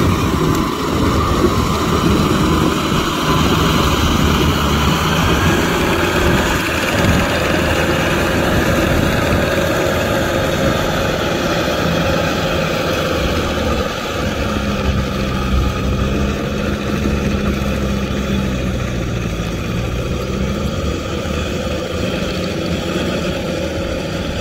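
Kubota M6040SU tractor's four-cylinder diesel engine running steadily under load while its rotavator churns through wet paddy mud. The sound drops a little about halfway through as the tractor moves farther off.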